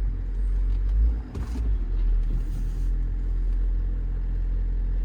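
Ford 6.7 Powerstroke V8 turbodiesel running, heard from inside the truck's cab as a steady low rumble, with a brief knock about a second and a half in.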